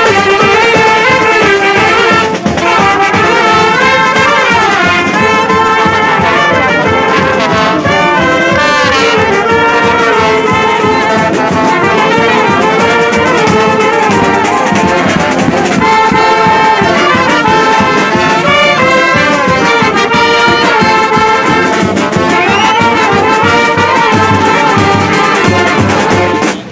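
A banda, a Basque-style street brass band of saxophones and trumpets, playing a lively tune loudly close at hand.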